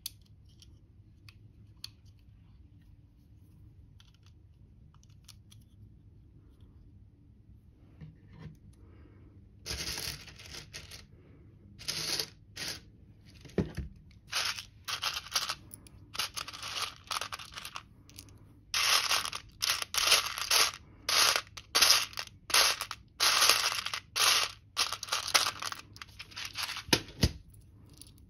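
Loose LEGO pieces rattling and clattering in a metal tin as a hand sifts through them, in many short irregular bursts that start about ten seconds in and grow denser toward the end.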